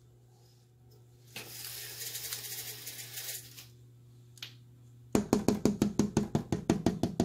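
A rustling hiss for about two seconds, then, from about five seconds in, a fast even run of knocks, roughly seven a second, each with a low ring.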